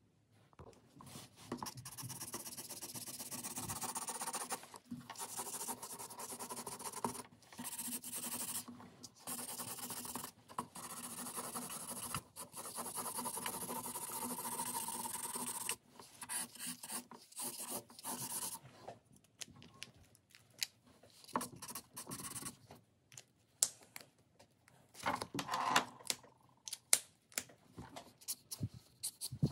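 Felt-tip markers scratching on paper. For about the first fifteen seconds long back-and-forth strokes lay down broad grey shading, broken by short pauses. After that come shorter, sparser strokes and small taps, and near the end the quick scratch of a fine-tip pen hatching lines.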